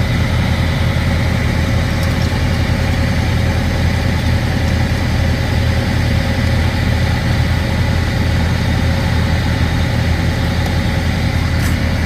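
Heavy truck engine idling steadily with a low, even hum.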